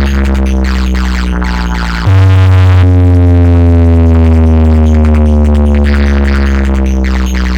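Electronic dance music played loud through a DJ sound system for a bass test: deep, long-held bass notes that shift pitch about two seconds in, with synth tones slowly falling above them.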